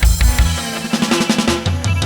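Background music with a steady drum-kit beat: kick and snare strikes under sustained pitched notes.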